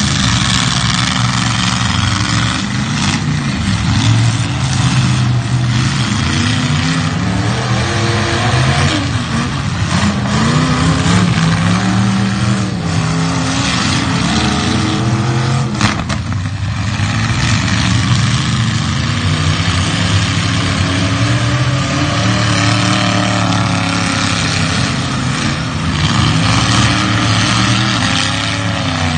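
Demolition derby cars' engines revving hard, the pitch rising and falling as they accelerate, with one sharp crash of a hit a little past halfway.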